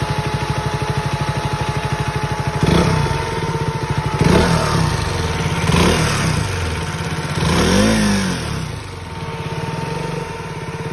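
KTM Duke's single-cylinder engine idling, blipped up and back down four times from about three seconds in. A steady hum from the newly replaced radiator fan runs underneath.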